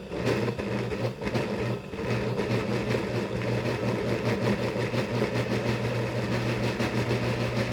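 Breville Bluicer blender motor running at low speed (setting 2), churning a thick load of peanut butter with a steady hum. The sound dips a few times in the first two seconds, then holds even.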